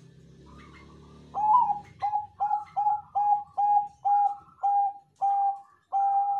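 Zebra dove (Bangkok perkutut) singing its cooing song: a run of about ten short, clipped coos at one steady pitch, starting a little over a second in, the last one drawn out longer.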